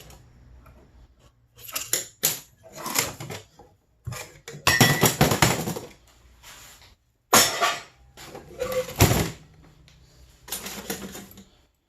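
Pieces of scrap metal clanking and rattling as they are handled and dropped, in a series of about eight separate sharp clanks, some ringing briefly.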